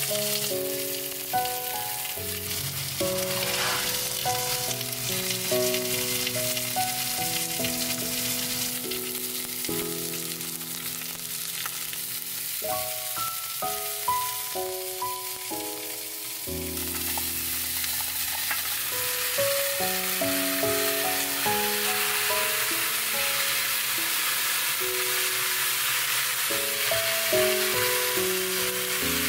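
Chicken pieces sizzling as they brown in hot oil in a pot, then stirred together with chunks of root vegetables; the sizzle eases in the middle and picks up again. Gentle melodic background music plays throughout.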